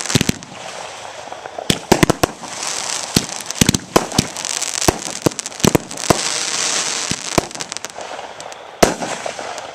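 Aerial fireworks going off in rapid, irregular succession: sharp bangs of bursting shells over a steady crackling hiss, which is loudest in the middle seconds.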